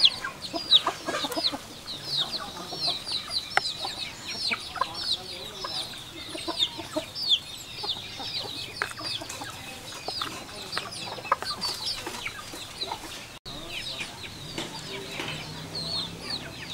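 Many small birds chirping at once: a dense run of short, high, downward-sliding chirps, with scattered faint clicks.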